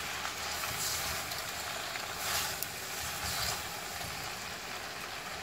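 Bean thread noodles, prawns and vegetables sizzling in a hot wok as they are tossed with a spatula and chopsticks, the sizzle swelling a few times as the food turns over, above a steady low rumble.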